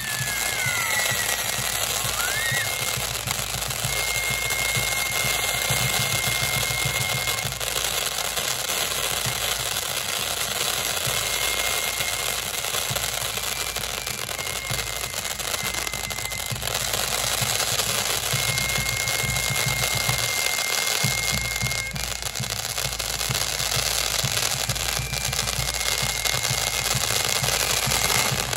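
Fireworks show: a dense, continuous crackling barrage of many small bursts, with a thin high whistle coming and going.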